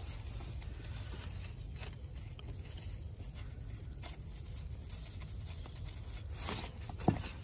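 Faint scrapes, rustles and small clicks of gloved hands threading bolts by hand into a VTC strainer cover on an engine, over a steady low hum. A sharper click comes near the end.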